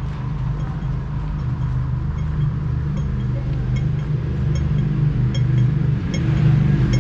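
City street traffic: a steady low engine drone from motor vehicles, growing a little louder near the end. From about three seconds in, a faint high tick repeats roughly once every 0.8 seconds.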